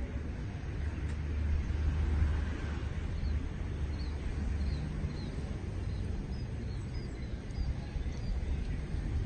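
Outdoor ambience: a low steady rumble, with a small bird giving a run of short high chirps, about two a second, from about three seconds in until near the end.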